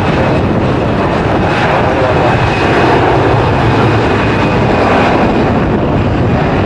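Airbus A320 airliner's jet engines running in a steady, loud roar as it speeds down a wet runway, spray streaming behind it.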